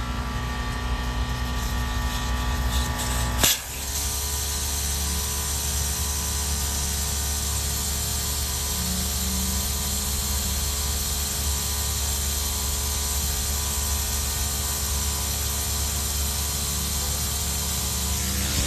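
Portable air compressor running steadily as it inflates a spare tire. A sharp click comes about three and a half seconds in, after which a steady mechanical hum carries on.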